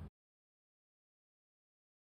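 Silence: the sound track is cut to dead digital silence.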